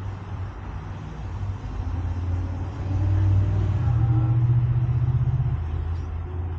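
Low engine rumble of a motor vehicle, growing louder to a peak about three to five seconds in, with a slight rise in pitch, then fading away.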